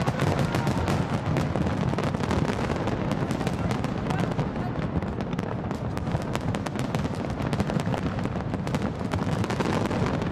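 Large fireworks display: a dense, unbroken barrage of aerial shells bursting and crackling, many overlapping reports with a constant low rumble beneath.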